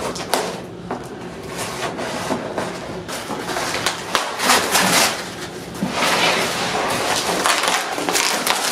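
Corrugated cardboard shipping box being cut along its tape with a knife and torn open by hand: scraping, ripping and crumpling of cardboard, louder in the second half.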